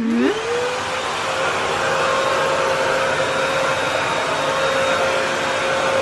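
Vo.Temm handheld vacuum cleaner switched on: its motor spins up with a quickly rising whine in the first half second, then runs steadily with a constant whine over a rush of air.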